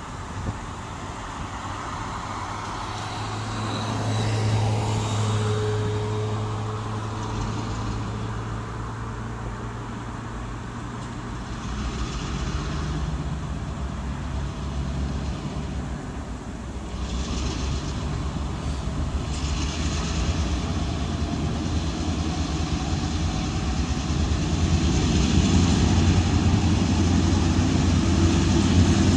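Diesel locomotive of a New York & Atlantic Railway freight train running at a low, steady hum as it approaches, growing gradually louder.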